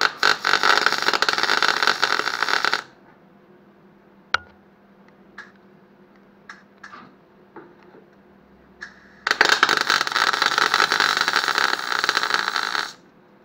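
MIG welder arc crackling as plug welds are laid on steel panels of a Classic Mini's boot floor bump stop bracket, in two bursts of about three seconds each. A few light clicks and taps fall in the pause between them.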